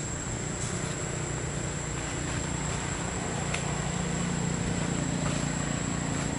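Steady low motor-like rumble that grows a little louder in the second half, with a constant high-pitched whine above it.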